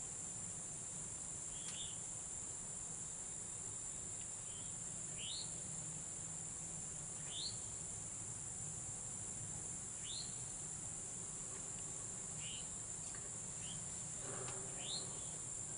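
A steady high-pitched drone of insects, with a short rising chirp repeated every couple of seconds, most likely from a bird.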